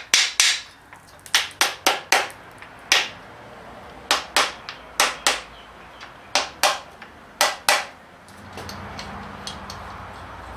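About fifteen sharp metal knocks, mostly in quick pairs, from the parts of a Holden 308 V8's bottom end being tapped and set down during assembly. A low steady hum comes in near the end.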